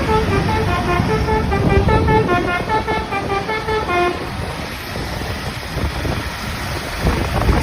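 Telolet bus horn, a multi-tone musical air horn, playing a quick tune of short stepped notes over a low rumble from the bus; the tune stops about four seconds in, leaving the rumble and wind noise, which swells again near the end.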